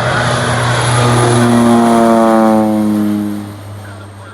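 Propeller-driven floatplane passing close by, its engine and propeller tone sliding down in pitch as it goes past, loudest about two seconds in, then fading away.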